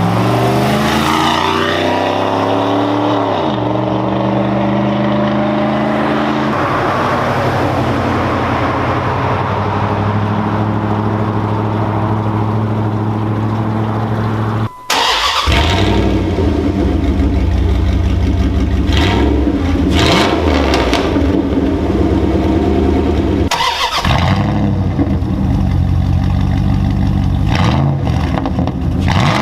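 A 1998 Dodge Durango's 5.2-litre V8 exhaust. It comes down from a rev near the start and then idles steadily through a Flowmaster Super 10 muffler. About halfway through, after a cut, it idles with a heavier low rumble through a Cherrybomb glasspack and is blipped with a few short revs.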